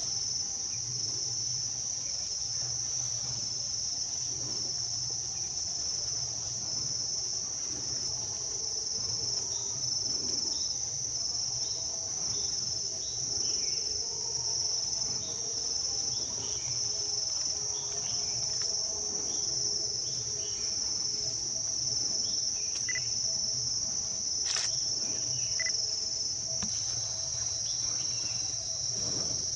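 Steady high-pitched insect chorus that does not let up, with a low hum underneath.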